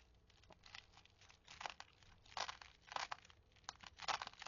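Irregular crinkling and rustling from a beaded necklace being handled and cut apart, in short scattered bursts that grow louder after about a second and a half.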